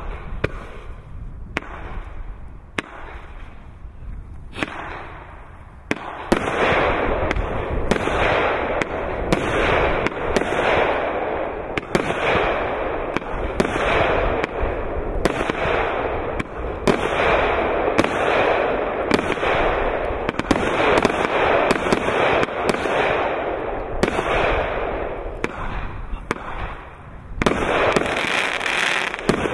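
Tango automatic firework cake firing its shots in sequence, with sharp bangs about once every second and a bit. The first few seconds are quieter. From about six seconds in, the bangs come louder over a continuous dense noise.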